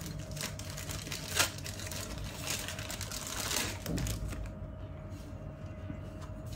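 Handling noise from a metal T-mount camera-lens adapter being turned and fitted in the hands: small scattered clicks, with one sharp click about a second and a half in. Around the middle, a plastic wrapping bag crinkles.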